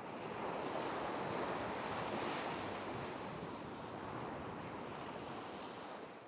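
Sea surf washing onto the shore, a steady rush of small breaking waves that is loudest early on and slowly dies away toward the end.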